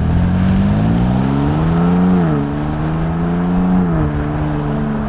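Ford Bronco Raptor's twin-turbo V6 exhaust under hard acceleration, the engine note climbing and then dropping twice as the transmission upshifts, about two and a half and four seconds in.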